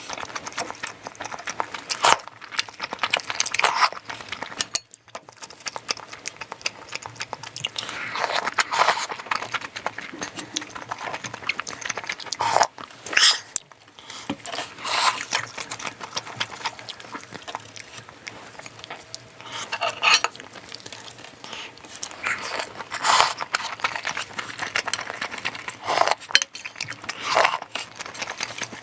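Close-miked eating of pork back-bone stew: wet chewing and biting in irregular bursts, with occasional clinks of cutlery against the dish.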